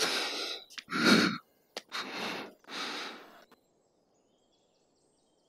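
A man sighing heavily four times, each sigh a long, noisy breath, all within the first three and a half seconds.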